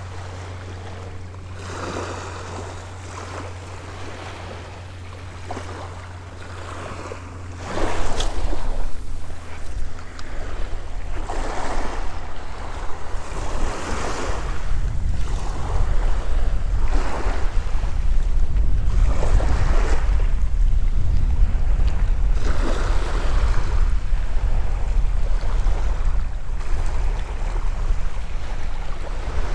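Small waves washing up a sandy beach, one swell of wash every two or three seconds, with wind buffeting the microphone; the wind rumble turns much louder about eight seconds in.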